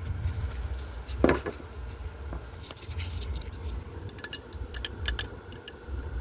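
Light clicks and scrapes of small parts being handled: one sharp knock about a second in, and a quick run of small clicks a little after the middle, over a steady low rumble.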